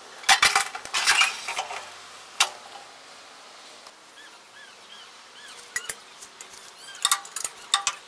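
Metal tools clinking and clattering in quick bursts near the start, a single clink a little later, and more clinks near the end, with small birds chirping in the background.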